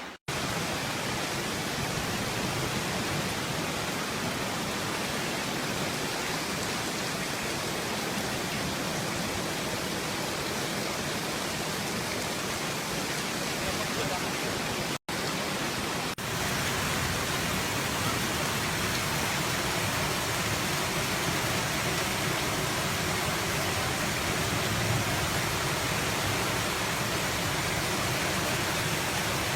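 Floodwater rushing through a street: a steady, unbroken rush of water. It cuts out for an instant about halfway through and resumes slightly louder and brighter.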